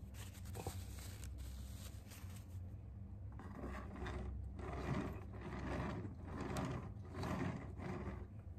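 Cake-decorating turntable turning while a metal spatula scrapes and smooths the frosting on the cake's side. The scraping comes in repeated swells, about one a second, from about three seconds in.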